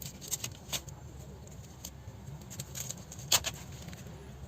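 Scattered light clicks and taps, one louder about three seconds in, over a low steady hum.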